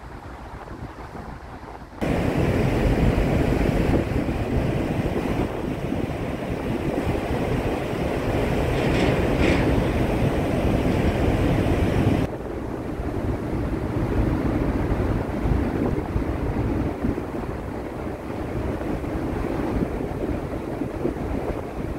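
Wind blowing across the microphone on the deck of a moving ship, over a steady rush of water. The noise jumps up suddenly about two seconds in and eases back about ten seconds later.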